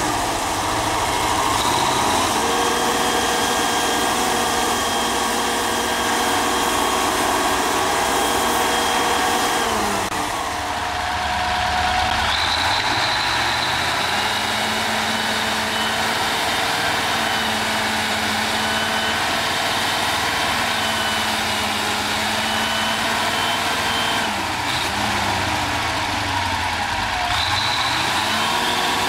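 Ford FW-60 articulated four-wheel-drive tractor's diesel engine running steadily under load as it tows a red silage trailer through mud. A high whine rides over the engine, and the engine's pitch shifts a couple of times.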